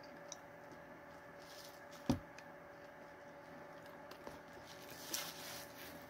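A person handling things and shifting about, heard faintly over a low steady hum. There is a sharp knock about two seconds in, a few small clicks, and a short rustle near the end.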